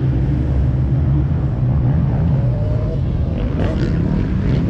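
Skid steer's engine running steadily, a low, even drone that holds its pitch throughout.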